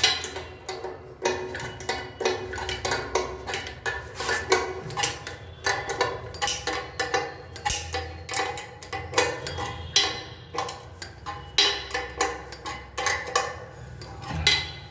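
Metal spanner clicking against the nut and fitting under a ceramic washbasin as the basin's fixing is tightened: repeated sharp ticks, about two or three a second, each ringing briefly.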